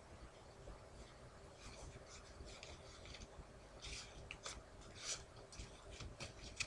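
Playing cards handled and shifted between the hands: soft scraping rustles and light flicks of cards sliding against each other, sparse at first and busier in the second half.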